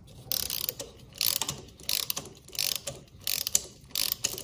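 Hand ratchet clicking in short bursts, about seven strokes spaced roughly half a second apart, as it turns the press screw of a chain breaker tool to push a pin out of a motorcycle drive chain.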